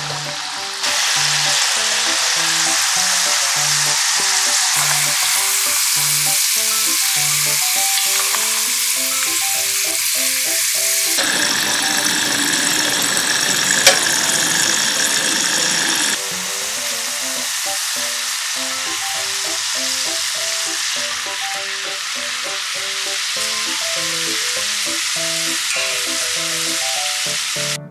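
Potato fries deep-frying in hot oil in a saucepan, a loud, steady sizzle. Midway the sizzle changes character for several seconds, with a single sharp clink. It then resumes a little quieter as the fries go back into the oil for a second fry to crisp them.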